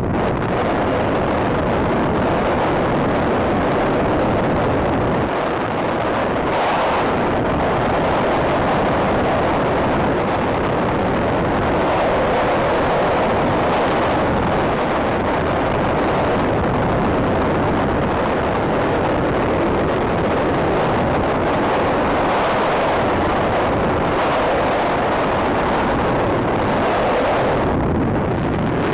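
Loud, steady rush of freefall wind buffeting the microphone of a skydiver's helmet camera.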